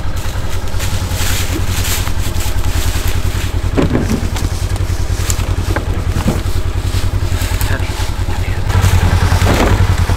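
A side-by-side UTV's engine idling steadily, with a few thuds as cut log rounds are handled and loaded into its cargo bed, one near the end.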